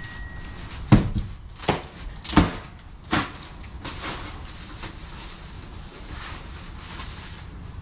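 Cardboard boxes being handled and opened: four sharp knocks and thuds in the first few seconds, then softer handling noises.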